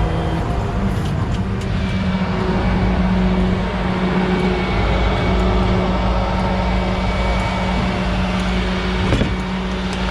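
A vehicle engine running steadily, a constant low hum with a deeper rumble under it. There is one brief click about nine seconds in.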